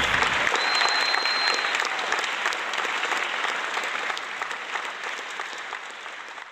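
Crowd applause, a dense patter of clapping that fades out steadily and dies away at the end.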